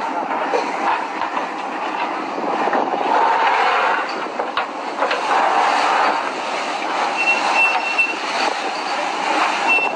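Steady mechanical noise of a fishing trawler's engine and deck machinery at work. A few short high beeps repeat about seven seconds in and again near the end.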